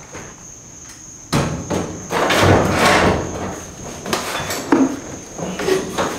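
Clanks, knocks and clicks of five-point racing harness hardware and a race seat, with rustling, as someone unbuckles and climbs out; the loudest stretch is a rustling swell after about a second. A faint steady high-pitched whine runs underneath.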